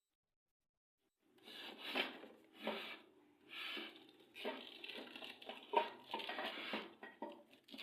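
Packaging being torn, rubbed and crumpled while a microwave oven is unboxed, in a run of irregular rustling and tearing strokes that begins a little over a second in.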